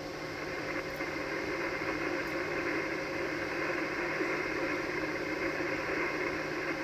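Steady static hiss of 80-metre band noise from an Icom HF transceiver's speaker, tuned to 3.853 MHz with no station transmitting, over a faint low hum.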